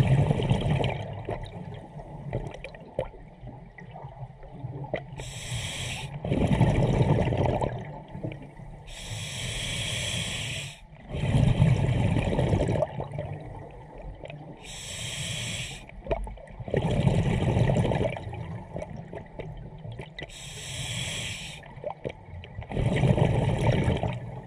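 Scuba diver breathing through a regulator underwater: a hissing inhale, then a louder burst of bubbling exhaled air. The cycle repeats about every five to six seconds.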